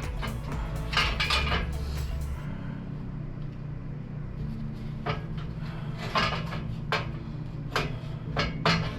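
Scattered metal clanks and knocks from handling a steel exhaust header and tools around the engine, with a burst near the start and a run of knocks in the second half.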